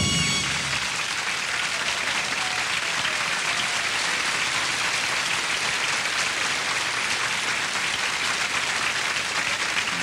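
A big band's final held chord cuts off just after the start. An audience then applauds steadily.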